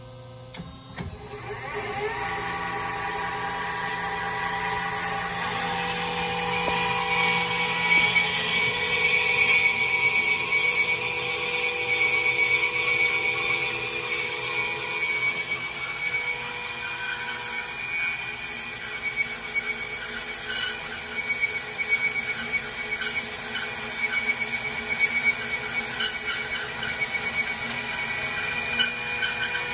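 MEP 370 horizontal automatic bandsaw starting up about a second in, then running steadily with its blade cutting through small round metal bar stock: a continuous high whine over a grinding rasp, with a few sharp clicks later on.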